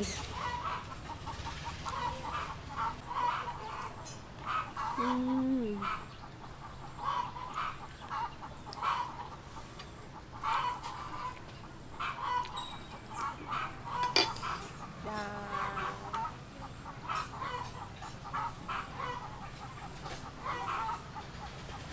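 Chickens clucking over and over, with a couple of short falling calls and a single sharp click about fourteen seconds in.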